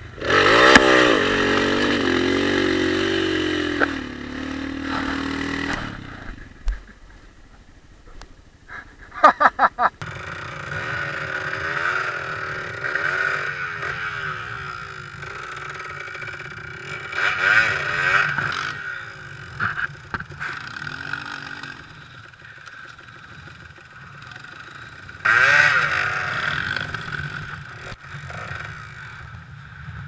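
Dirt bike engine running and revving up and down while riding over rough, muddy ground, the pitch rising and falling with the throttle. Loud surges of revving come near the start, about halfway through, and again toward the end, with a quieter stretch in between.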